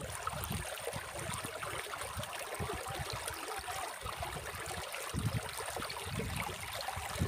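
Shallow river water running and gurgling over rocks and stones: a steady babble.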